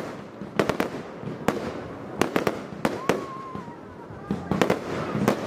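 Fireworks display: irregular sharp bangs of bursting shells, a faint whistle about three seconds in, and a quicker run of bangs near the end.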